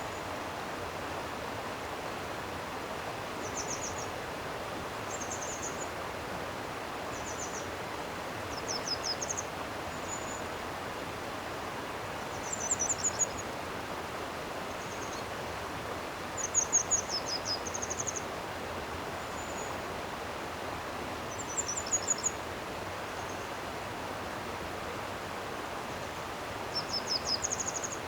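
Steady rush of a flowing stream. Over it, a small bird sings short, high, rapid phrases every few seconds.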